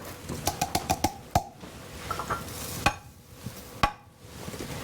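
Hard kitchen containers being handled: a string of light knocks, taps and clinks, some with a short ring, and a few louder knocks near the middle and end.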